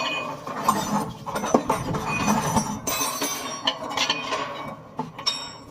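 Metal clinking and knocking: a series of sharp strikes, some with a short ringing tone, as of metal tools and parts handled against one another.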